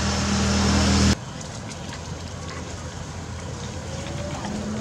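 A steady engine hum with a broad hiss, growing louder, cuts off abruptly about a second in, leaving quieter outdoor background with faint ticks.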